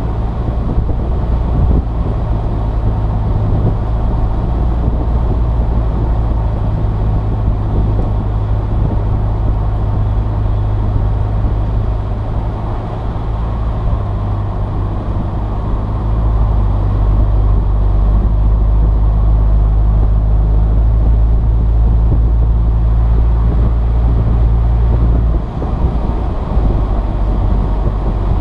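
Saturn Sky Red Line's turbocharged 2.0-litre four-cylinder engine and tyre noise while driving, heard from inside the car: a steady low drone that eases a little around the middle and drops off briefly near the end.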